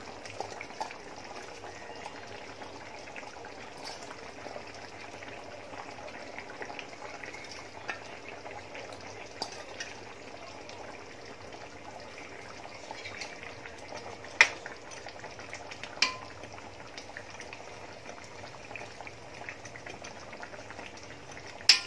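Coconut milk simmering in a large aluminium wok, a steady bubbling hiss. Three sharp metal clinks against the pan come later on, the loudest near the end.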